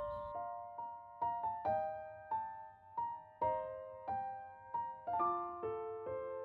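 Background piano music: a slow, gentle melody of single struck notes, about two a second, each fading away.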